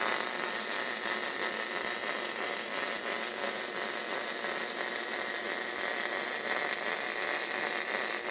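MIG welding arc on steel plate: a steady crackling hiss as the wire feeds and the bead is laid along a seam.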